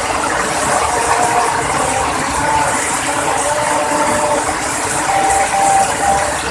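Heavy rain pouring down as a loud, steady hiss, with faint wavering tones coming and going over it.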